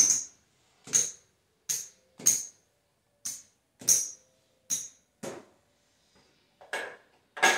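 Casino chips clacking together and onto the table felt as they are picked up and set down, about a dozen sharp clicks at irregular intervals, each with a short high ring.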